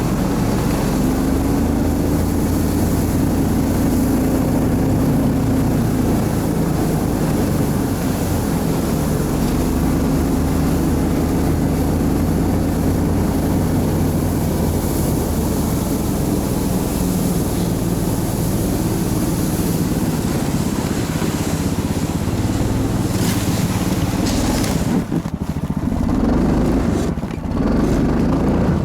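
Engine of a motorized towing sled running under load as it pulls along over snow, a steady drone that dips and picks up again a few seconds before the end.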